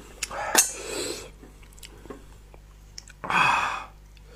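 A person slurping spicy sea snails, with two wet sucking slurps: a short one about half a second in and a louder one about three seconds in.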